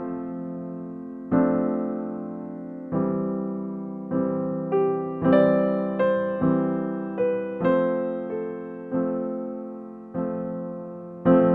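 Background music: a keyboard playing slow chords, each struck and left to fade, with a run of higher notes in the middle.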